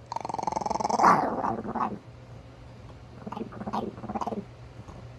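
Chihuahua growling and grumbling in a drawn-out, gargly vocal sound for about two seconds, then a few short grumbles.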